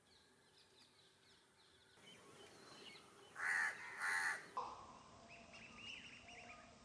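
A crow cawing twice, loudly, about three and a half seconds in, over faint chirping of small birds.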